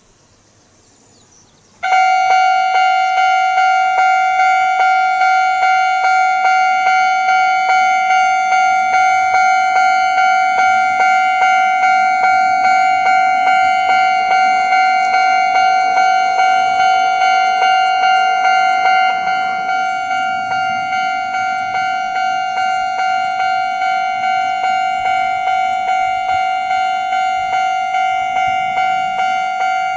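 Japanese railway level-crossing alarm at Kintetsu's Shimoichiguchi No. 2 crossing, starting suddenly about two seconds in: an electronic bell tone at one steady pitch, pulsing about twice a second, a little quieter after about nineteen seconds.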